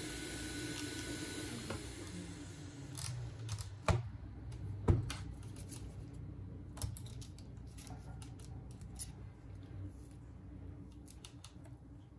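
Sharp clicks and light ticks of a plastic pry pick and tools working the glued back glass and camera glass of a Samsung Galaxy Note 8, with two loud snaps about four and five seconds in. A steady hum stops with a falling pitch about a second and a half in.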